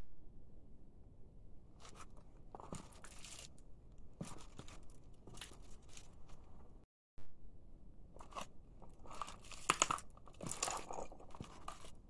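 A shoe crushing a plastic toothpaste tube on a hard floor, making irregular crunching and crinkling scrunches as the tube is flattened and the paste squeezed out. The sound cuts out briefly about seven seconds in, and the loudest cluster of crunches comes after that.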